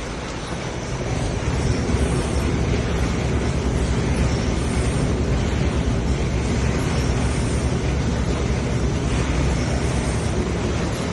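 Raffia cloth cutting machine running, a steady mechanical noise that grows louder about a second and a half in, with a faint repeating pattern every two seconds or so.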